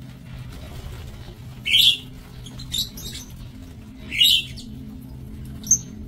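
Lovebirds giving short, sharp, high-pitched chirps: a few separate calls, the loudest about two seconds in and just after four seconds, with smaller ones between and near the end.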